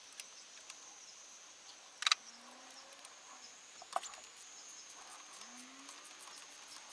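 Steady high-pitched insect chirring in the background, broken by two sharp clicks about two and four seconds in, from tools on the 13 mm nut of the engine ground stud.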